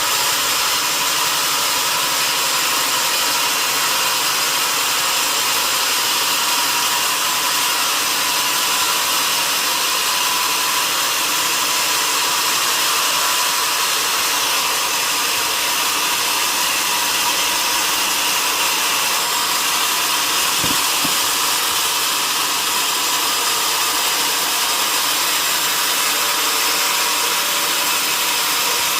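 Sawmill saw running steadily through a log, an even, mostly high-pitched noise that holds constant without a break.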